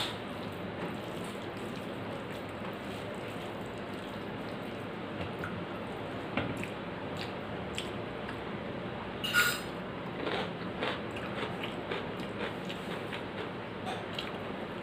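Eating by hand: fingers squishing and mixing rice and dal on a steel plate, and chewing, heard as scattered soft clicks and smacks over a steady hiss, with one louder sharp click about nine seconds in.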